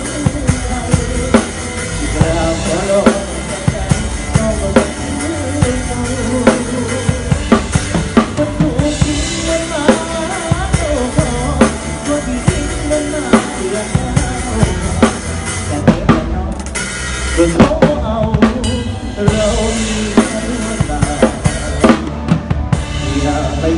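Drum kit played live with a band: a steady beat on kick drum and snare with cymbals, over bass and other band instruments. The cymbal wash drops out for short moments a few times in the second half.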